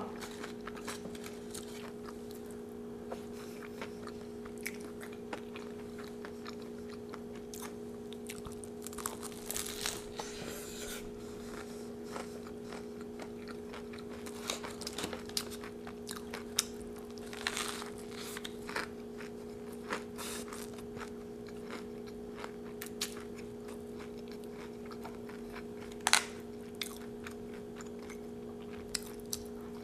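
Close-up chewing of a crunchy Doritos taco, with scattered crisp crunches and small clicks over a steady low hum.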